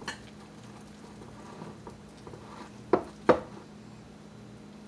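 Wire whisk stirring thick pancake batter in a glass bowl, soft and quiet, with two sharp clinks of the whisk against the glass about three seconds in.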